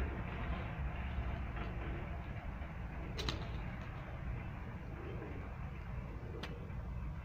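Domestic pigeons cooing softly while feeding, over a steady low rumble and hiss. Two sharp clicks stand out, one about three seconds in and one near the end.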